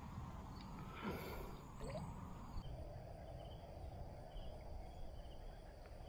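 Quiet outdoor river ambience: faint water movement around a hand holding a smallmouth bass in the shallows as it is released, over a low steady rumble.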